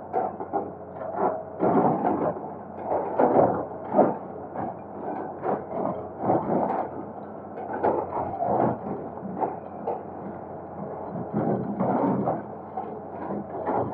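Excavator at work: engine running steadily under irregular scrapes and knocks, typical of the bucket breaking up and dragging concrete and rubble.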